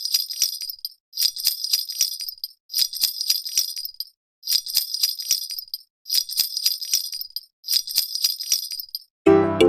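Baby rattle shaken in six short bursts about a second and a half apart, each a high jingling clatter. Music comes in near the end.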